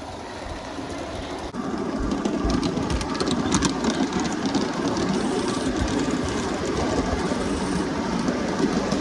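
G-scale garden-railway train hauled by a live-steam locomotive, running on track: a steady rolling rumble with clicks from the wheels over the rail joints. It gets suddenly louder about a second and a half in.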